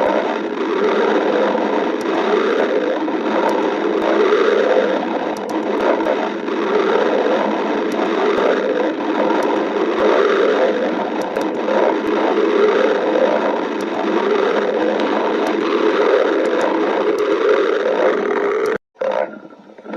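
Stomach growling: continuous gurgling and rumbling, cutting out suddenly for a moment near the end.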